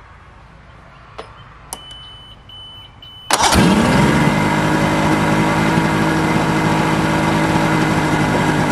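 1970 Mercury outboard motor starting: a couple of clicks and a short high beep, then about three seconds in the engine catches at once, its pitch sweeping up, and runs at a steady fast idle. It is idling at about 2,500 rpm, far too high, so the throttle linkage still needs easing back.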